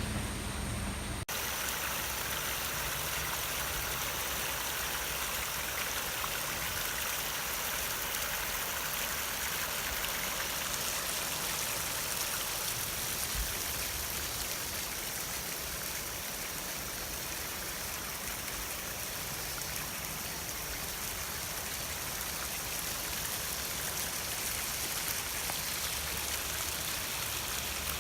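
A typhoon-swollen river rushing in flood, a steady, unbroken roar of water. Just before it, a low vehicle hum cuts off abruptly about a second in.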